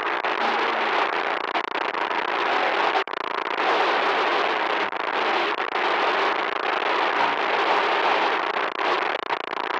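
Loud, harsh crackling static noise, with a brief break about three seconds in.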